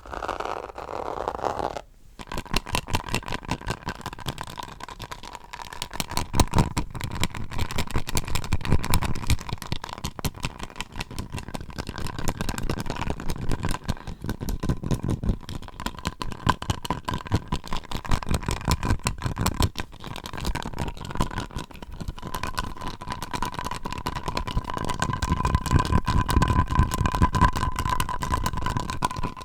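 Fast, continuous tapping on a hard object, many taps a second, with a steady ringing tone underneath. A different, hissier handling sound stops about two seconds in, just before the tapping starts.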